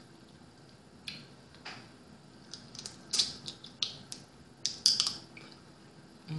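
Close-up eating sounds: short, irregular wet smacks and clicks of lips and fingers as boiled blue crab meat is eaten by hand, with a cluster of them near the end.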